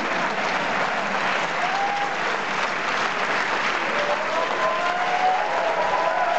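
A cinema audience applauding steadily, with a few voices calling out over the clapping from about four seconds in.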